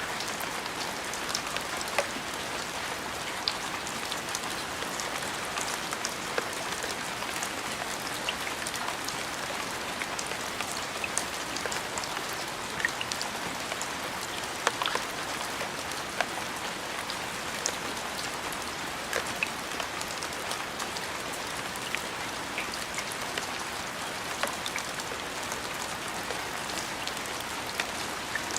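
Steady rain: an even hiss of falling rain with scattered individual drops landing as sharp ticks.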